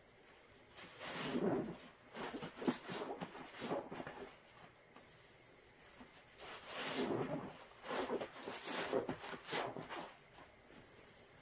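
Thick suds squished and squeezed in rubber-gloved hands with a soaked sponge: wet squelching and crackling foam in four bursts with pauses between.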